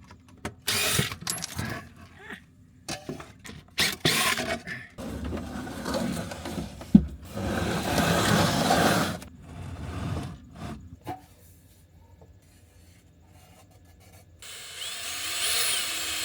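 Power drill and hand-tool work on the bus wall, heard as a string of short, separate bits: drill runs, knocks and rubbing, with one sharp knock about seven seconds in. The work is drilling the hole for the portable air conditioner's exhaust vent.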